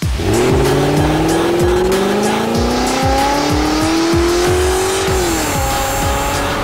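Car burnout sound effect: an engine revving, rising steadily in pitch for about five seconds and then dropping away, with tyre squeal, over electronic music with a steady beat.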